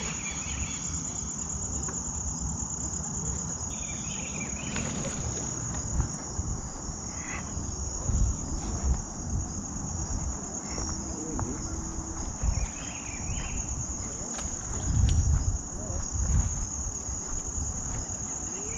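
Insects trilling in one steady, high, unbroken drone, with a few low rumbles about 8 and 15 seconds in.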